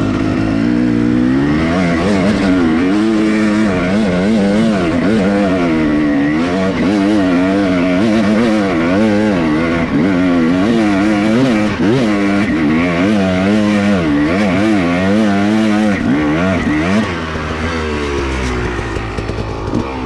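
Dirt bike engine revving up and down again and again under changing throttle, then settling to a lower, steadier running near the end.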